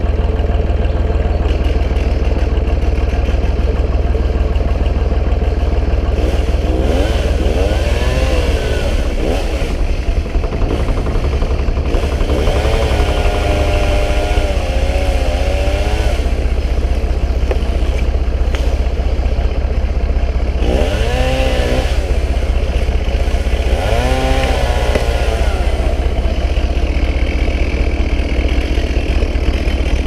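Marshall 132 tractor engine idling steadily, with four brief rising-and-falling whines over it, the longest a few seconds long in the middle.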